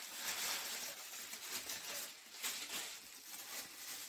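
Packing material (crinkly paper and plastic wrap) rustling and crackling as hands dig through it and pull it out of a cardboard box, in irregular surges.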